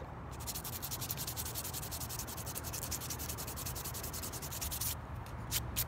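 Small piece of sandpaper rubbed quickly back and forth by hand along the edge of a wooden clay-sculpting knife, about ten short strokes a second, slowing to a few separate strokes near the end. It is the final smoothing of the edge.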